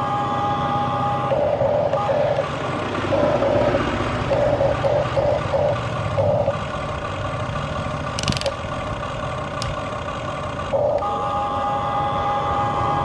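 Huina 1593 RC excavator's electric motors whining as it works, steady at first, then pulsing on and off in short bursts, then steady again from about 11 s. There is a short sharp clack with a hiss about 8 s in.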